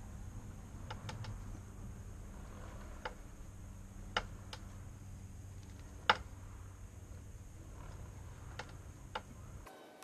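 Irregular sharp clicks, about eight, the loudest a little after four and six seconds in, as the rear wheel and transmission of a Piaggio MP3 400 scooter are turned by hand with the drive cover off. This is the ticking the owner is tracing at the back of the scooter. A steady low hum runs underneath and stops abruptly near the end.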